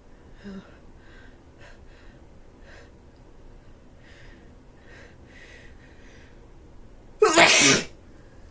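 A person with a head cold sneezes once, loudly, near the end, after several seconds of faint breathing sounds.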